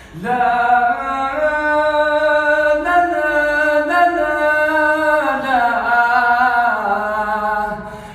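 A man singing one long, wordless, melismatic phrase of an Egyptian mawwal, unaccompanied. The held line wavers up and down in pitch, then slides downward and fades near the end.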